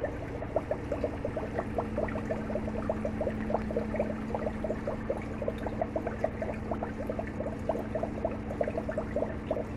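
Aquarium water bubbling: quick, irregular little bubbling blips, several a second, over a steady low hum.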